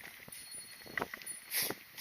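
Footsteps crunching and scuffing on a rocky, gravelly trail, with a short hiss of wind buffeting the microphone about one and a half seconds in.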